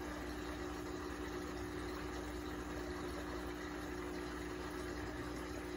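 Aquarium air pump running with a steady hum and faint hiss.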